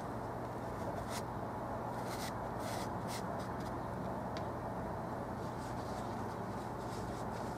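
Paintbrush strokes on canvas: a handful of short scratchy strokes in the first three seconds and one more a little later, over a steady background hum.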